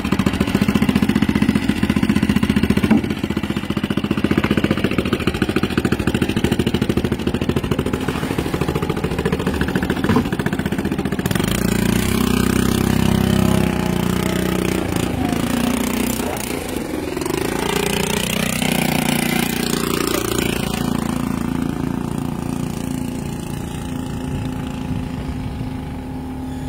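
An engine running close by: a fast, even chugging for the first ten seconds or so, then a deeper hum that rises and falls in pitch before settling.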